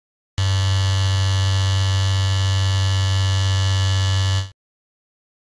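Electric football game's vibrating metal field buzzing steadily, the motor-driven vibration that moves the figures. The buzz starts abruptly about half a second in and cuts off after about four seconds.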